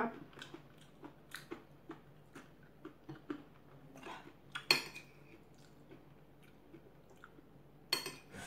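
Eating at the table: chewing with small wet mouth clicks, and a metal spoon clinking against a ceramic plate, with one sharp ringing clink about halfway through and a few more near the end as food is spooned up.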